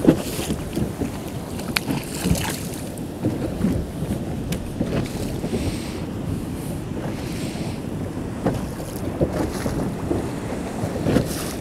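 Wind buffeting the microphone and choppy sea washing against a small inflatable boat, an uneven rushing roar with a few short, sharp clicks.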